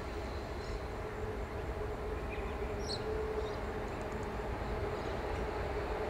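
QR National LDP class diesel-electric locomotives approaching a few hundred metres off under dynamic braking: a steady low rumble with a constant hum, slowly growing louder.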